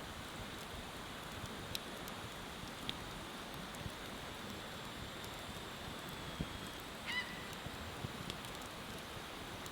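Wood fire crackling steadily, with scattered sharp pops. About seven seconds in, a short honking bird call cuts through once.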